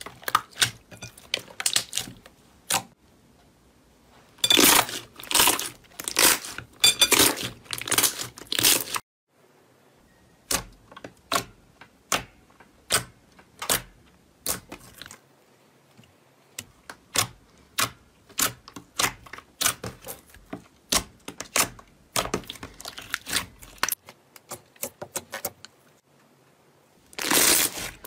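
Slime being squeezed, pressed and poked by hand: a string of sharp wet clicks and pops, with dense runs of crackling about five to nine seconds in, around twenty-two seconds in, and again near the end.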